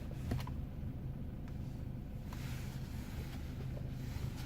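BMW 328xi idling, heard as a steady low rumble from inside the cabin, with a faint click about a third of a second in.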